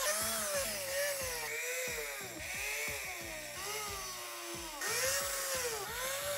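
Milwaukee cordless drill/driver driving Torx screws into a plastic back panel: the motor whine rises and falls in pitch over a series of short runs, about one a second.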